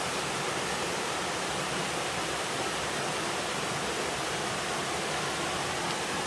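A small mountain waterfall pouring steadily into a stream, an even rushing hiss with no breaks.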